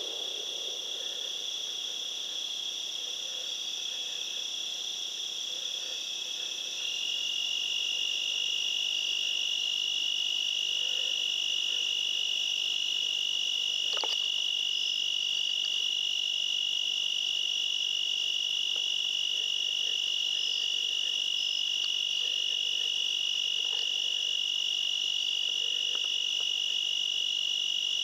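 A steady, high-pitched chorus of crickets, with a second, slightly lower-pitched chorus joining about seven seconds in so that the sound grows a little louder. A faint click comes about halfway through.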